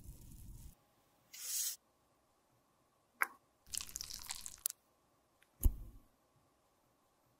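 Lipstick tube and plastic lipstick mold being handled: a short hiss, a click, then about a second of scraping as the tube is pushed into the mold, followed by a sharp knock, the loudest sound.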